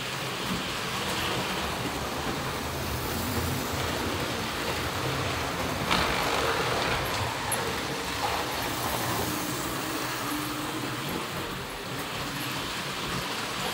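Model train running on its track, a steady whirring rumble of the motor and wheels on the rails, louder as it passes close about six seconds in, with a sharp click at that moment.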